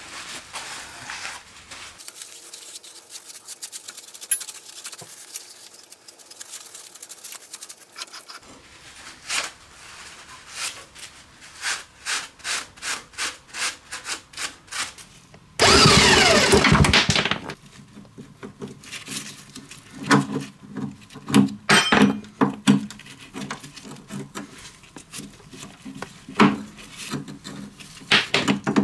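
Hand work on a seized small lawn-mower engine with its cylinder head off: a run of rhythmic scraping or scrubbing strokes, about two a second. Just past the middle comes a loud rush of noise lasting about two seconds, followed by scattered metallic clicks and knocks of tools.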